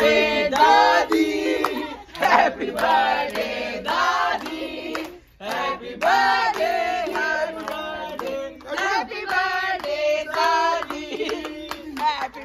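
A group of voices singing together, holding and bending notes, with some hand clapping.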